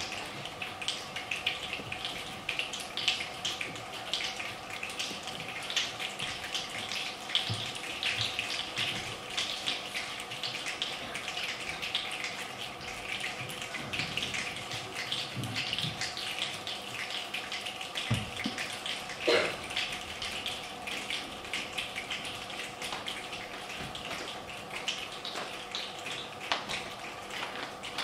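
A group of children rubbing their palms and snapping their fingers together, making a dense hiss scattered with small clicks that imitates falling rain in body percussion, over a faint steady hum. A short rising sound stands out about two-thirds of the way through.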